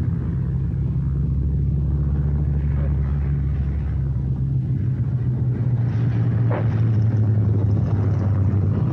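Boeing B-17 Flying Fortress's Wright Cyclone radial engines running in a steady low drone as the bomber lands. A short tyre chirp about six and a half seconds in marks the wheels touching down.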